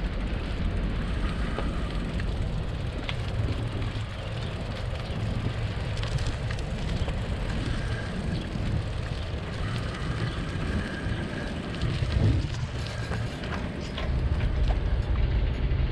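Wind rumbling over the microphone and bicycle tyres rolling on pavement during a ride, a steady low noise with a few faint ticks, growing louder about fourteen seconds in.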